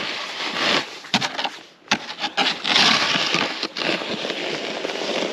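A snow shovel scraping and pushing snow across lake ice, with a few sharp knocks, then boots crunching through the snow.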